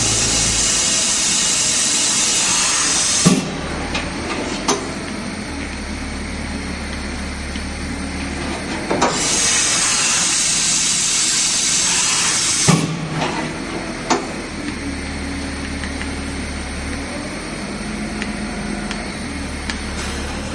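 Fadal 4020 vertical machining center working through its cycle: a loud steady hiss cut off by a clunk about three seconds in, then a low hum with a couple of knocks. A second hiss follows about halfway through, again ending in a clunk, and then more low hum and knocks.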